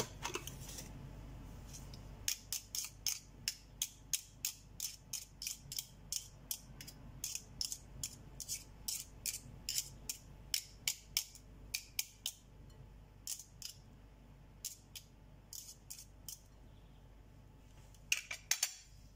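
Sharp light clicks and taps of metal mixer beater wires knocking against a glass mixing bowl as batter is worked off them, about two to three a second, thinning out and ending in a quick cluster of taps near the end.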